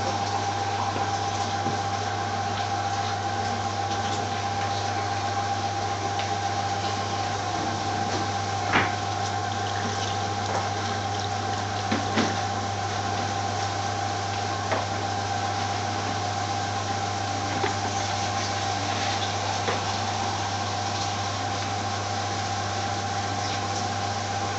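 Steady machine hum with a constant whine running underneath, and a few faint knocks, the clearest about nine and twelve seconds in.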